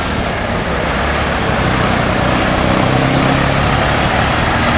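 A tour bus driving past: a steady rush of tyre and road noise with a low engine drone that comes through more clearly in the second half.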